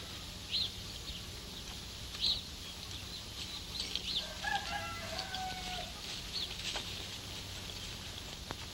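Chickens in a barnyard: short high peeps and clucks every second or so, with one longer held call about halfway through, over the steady low hum of an old film soundtrack.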